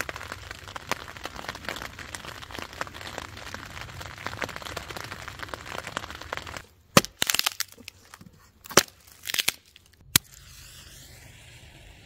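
Light rain pattering on a tent fly, a dense run of small ticks. About six and a half seconds in it gives way to a handful of loud, sharp cracks of dry kindling wood breaking and splitting, the last just after ten seconds.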